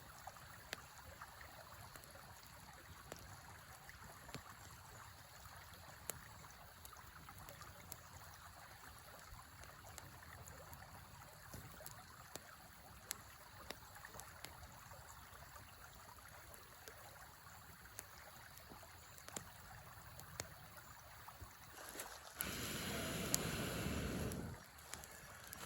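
A river flowing steadily, with the sharp scattered pops and crackles of a campfire over it. A much louder rushing noise sets in about 22 seconds in and breaks off briefly near the end.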